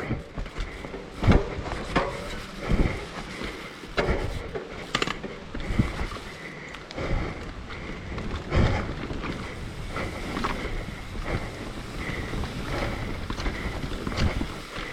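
Mountain bike rolling down a dirt trail: tyre noise and wind on the microphone, with irregular knocks and rattles as the bike goes over bumps.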